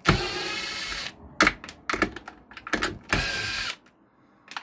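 Cordless drill-driver backing out the wood screws that hold a midrange driver in a speaker cabinet. The motor runs twice, about a second near the start and about half a second later on, with a few sharp clicks in between.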